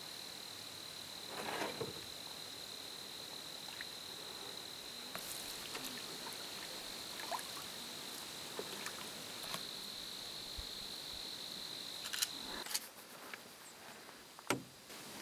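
An insect trilling steadily at one high pitch, stopping suddenly near the end, followed by a few sharp clicks.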